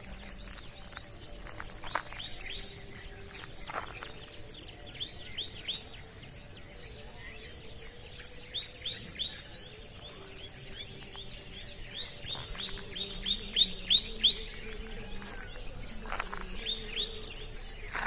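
Birds calling in repeated series of short, falling chirps, a quick run of them in the second half, over a steady high-pitched drone of insects.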